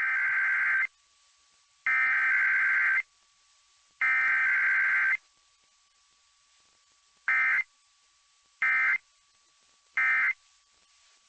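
Emergency Alert System SAME data bursts on the KOA radio broadcast, a harsh warbling digital screech. There are three header bursts of about a second each, two seconds apart, followed by three short end-of-message bursts, the sequence of a Required Weekly Test with no attention tone.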